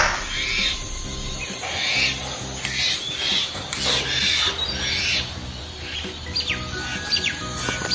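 Background music with a steady repeating pattern, and bird chirps on top that become plain and frequent near the end.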